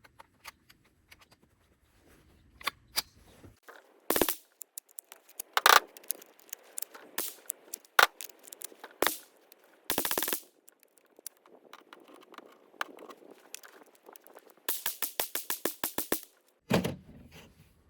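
.22 LR gunshots from a Ruger 10/22 semi-automatic rifle, fired singly at irregular intervals, then a rapid string of about ten shots in a second and a half near the end.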